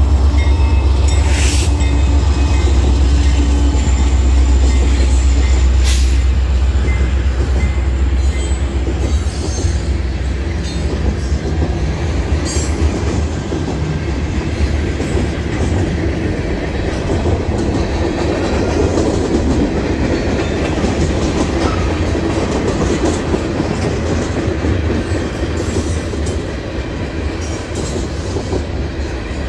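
Heavy BNSF freight train passing a grade crossing: the diesel locomotives' deep rumble for the first several seconds, with two sharp clanks, then the steady rolling rumble and clatter of the freight cars' wheels on the rails.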